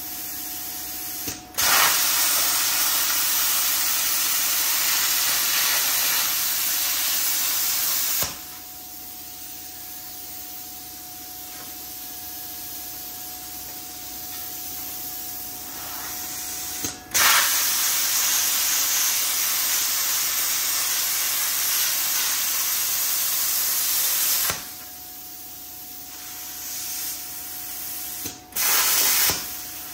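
Plasma cutter cutting thin 26-gauge sheet metal: a loud, even rushing hiss from the torch in three runs, two of about seven seconds and a short one near the end. Between cuts the machine keeps running with a quieter steady hiss and a faint steady tone.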